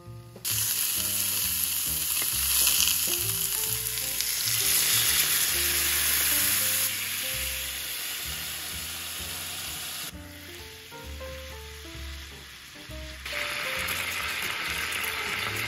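Pork-shoulder vegetable rolls sizzling loudly in a nonstick frying pan, a steady frying hiss that starts about half a second in, softens for a while past the middle and comes back strong near the end.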